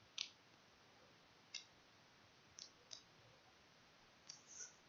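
Computer mouse clicking six times, some single and some in quick pairs, against near silence.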